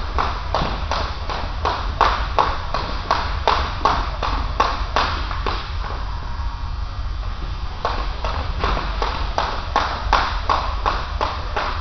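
Jump rope skipping on a gym floor: the rope and feet strike the floor about three times a second, with a break of about two seconds just past the middle before the rhythm picks up again. A steady low hum runs underneath.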